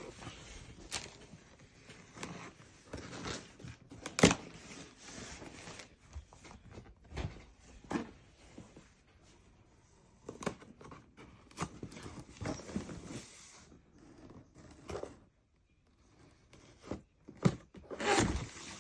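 Irregular knocks, clicks and rustles of things being handled, with one sharp knock about four seconds in and a louder cluster of knocks near the end; no motor is running.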